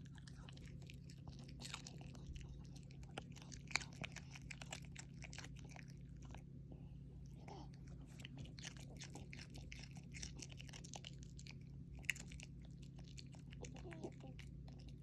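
Small dog chewing and crunching food, with many quick crisp crunches in runs and a couple of sharper cracks, over a faint steady low hum.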